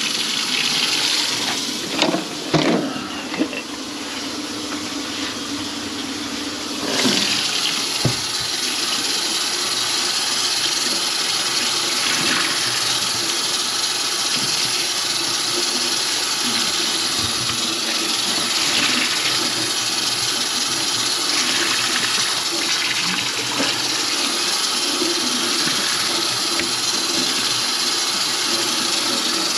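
Water running steadily from a kitchen faucet into the sink and down the drain, turned up or gushing harder about seven seconds in. A few knocks come in the first seconds.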